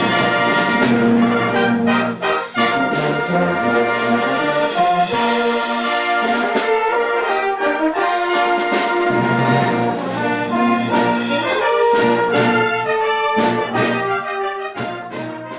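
Brass band playing full sustained chords that change every second or two, fading slightly near the end.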